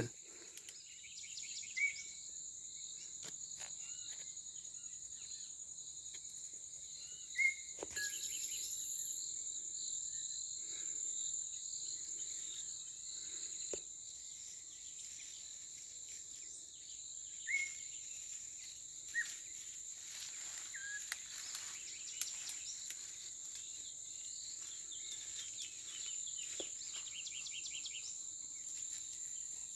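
Steady high-pitched chorus of tropical insects, with a few short bird whistles heard now and then.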